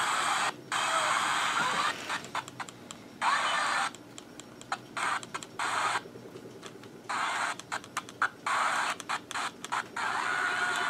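Grundig Traveller VII pocket shortwave radio's small speaker hissing with static that cuts out and comes back in abruptly many times, as the radio runs in scan mode.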